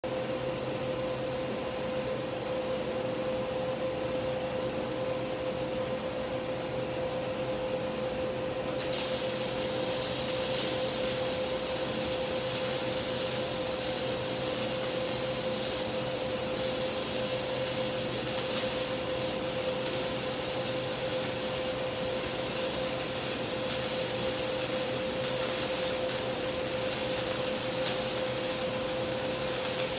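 Steady electrical hum with a constant tone, then about nine seconds in a welding arc is struck and held, adding a steady hiss with occasional crackles.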